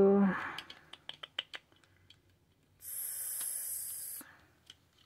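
Light scattered clicks and rustles of paper being handled, then a steady high hiss lasting about a second and a half near the middle.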